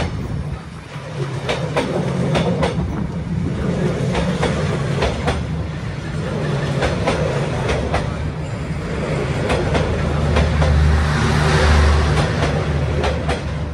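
Passenger train coaches passing at close range: a steady low rumble with the wheels clacking irregularly over the rail joints, growing louder about eleven seconds in.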